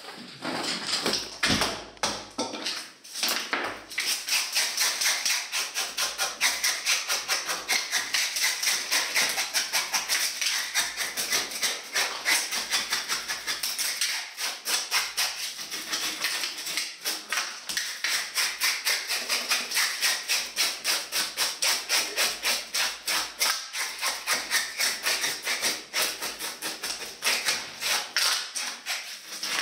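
Sharp taps or scrapes repeated fast and evenly, about four a second.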